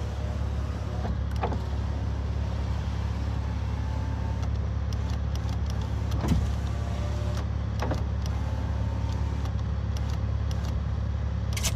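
A car's power window motor running the newly fitted door glass up and down as it is tested after replacement, with a few sharp clicks over a steady low hum.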